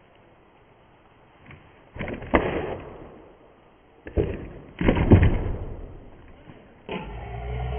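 Skateboard kickflip on grass: the board's tail popped and the board and wheels knocking down onto the ground in a few dull impacts, in two clusters about two seconds apart, the loudest about five seconds in.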